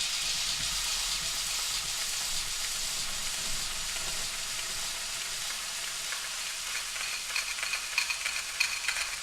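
Food sizzling steadily in a hot frying pan as a glass noodle stir-fry cooks. From about seven seconds in, a utensil scrapes and taps against the pan as the food is stirred.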